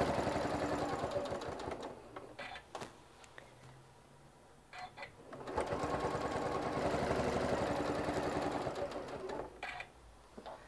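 Sewing machine stitching in two steady runs at a fast, even rhythm. The first run stops about two seconds in, the second starts about halfway through and stops near the end, and a few short clicks fall in the pauses.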